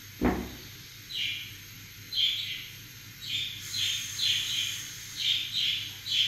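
Birds chirping: short high calls about once a second, often two in quick succession. A single knock just after the start is the loudest sound.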